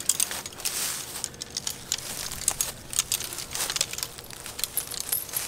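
Bundled electric fence netting being handled: the step-in posts knock and rattle against each other and the netting rustles, in many irregular small clicks and clatters.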